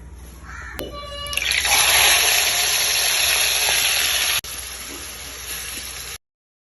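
Masala-coated shrimp going into hot oil, with a loud, steady sizzle that builds about a second in. A little past four seconds the sizzle drops to a quieter level, and it cuts off near the end.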